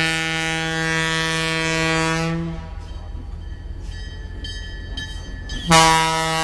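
Wabco E2 two-chime locomotive air horn blowing a long steady blast that cuts off about two and a half seconds in, then sounding again with a sharp start near the end.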